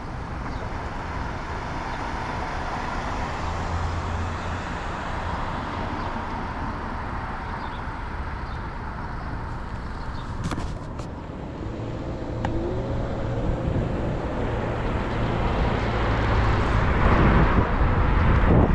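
Road traffic noise heard from a moving bicycle, with a steady rush of wind and road noise. Low engine hum from passing vehicles comes and goes, and the noise grows louder over the last few seconds.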